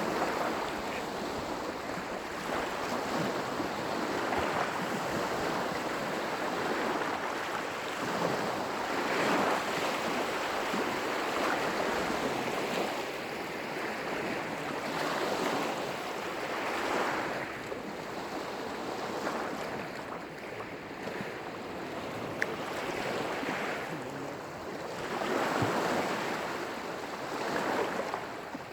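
Lake waves breaking on the shore, a steady wash with surges every few seconds as each wave comes in.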